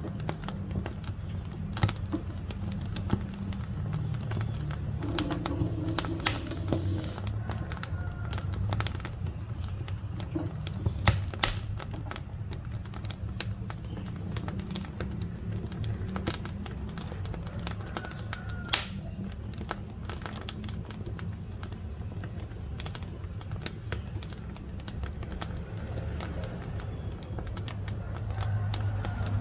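Firewood burning in a wood-fired stove, crackling with irregular sharp pops and snaps over a low steady rumble.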